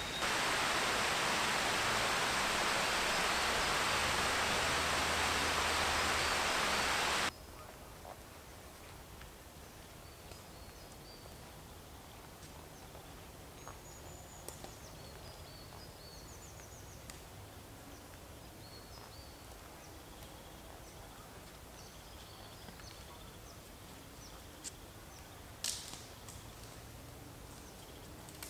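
A loud steady rushing noise that cuts off suddenly about seven seconds in, followed by quiet forest ambience with faint high bird chirps and a sharp click near the end.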